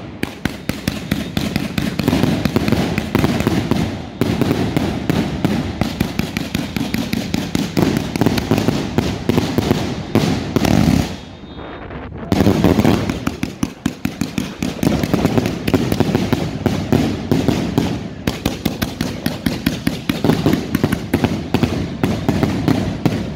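A 300-shot Thunder King firework cake firing a rapid barrage of sharp reports, several shots a second, with a brief lull about halfway through before the barrage resumes.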